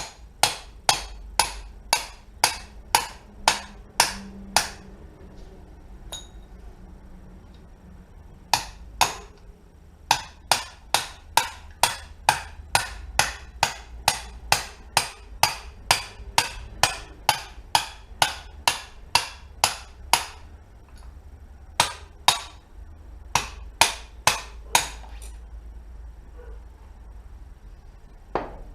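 Hammer striking metal repeatedly, about two blows a second, in several runs broken by short pauses.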